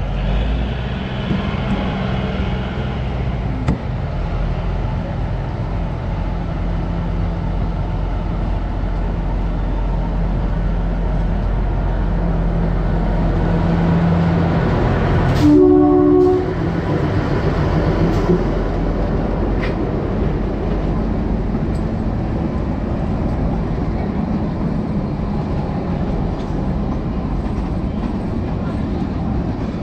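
Narrow-gauge toy train running, heard from a coach window: a steady rumble of wheels and coach as it runs close past a diesel locomotive and coaches on the next track. A train horn sounds once for about a second, roughly halfway through.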